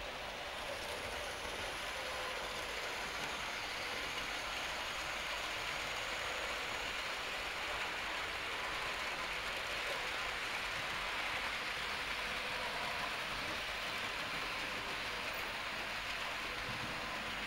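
Model trains running on a layout: a steady, continuous rolling rattle of small wheels on the track, with a faint whine from the locomotive motors.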